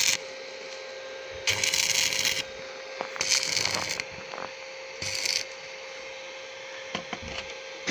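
Stick (electrode) arc welding: the arc crackles and sizzles in three short runs, the first two about a second each and the last about half a second, over a steady faint hum. The welds are tacking a steel plate onto the inside of a tractor's kingpin sleeve.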